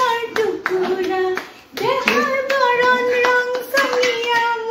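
Hands clapping a steady beat, about three claps a second, along with singing in long held notes. The singing and clapping drop away briefly about a second and a half in.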